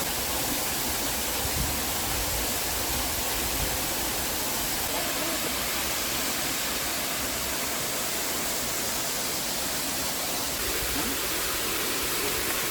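Steady rushing roar of the Hayden Falls waterfall, an even unbroken noise of falling water.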